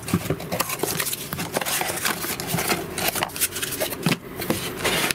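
Corrugated cardboard packing inserts and box flaps rustling and scraping as they are pulled out of a cardboard box by hand, in irregular scratches with many small knocks.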